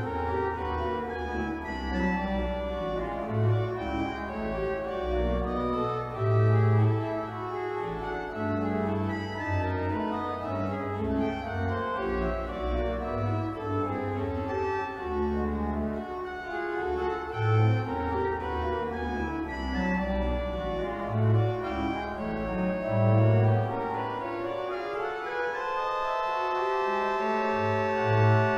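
Church pipe organ playing a lively, busy passage over strong pedal bass notes. Near the end an upward run leads into a long, full held chord.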